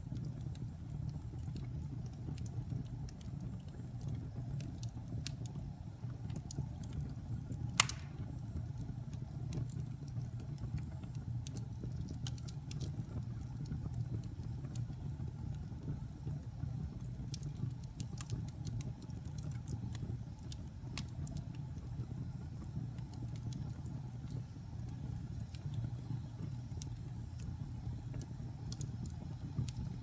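Fire burning in a fireplace: a steady low rumble of flames with scattered crackles and one louder pop about eight seconds in.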